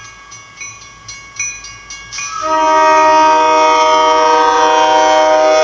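A warning bell rings quickly, about three or four strokes a second. About two seconds in, an MBTA commuter locomotive's air horn starts a long, loud chord of several tones, held to the end as the train approaches.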